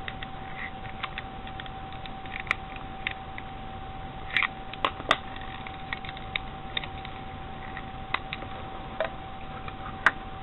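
Scattered small clicks and taps of plastic parts being pressed and tapped into place in an external USB enclosure's casing, with a few louder clicks about halfway through and near the end. A steady faint high tone runs underneath.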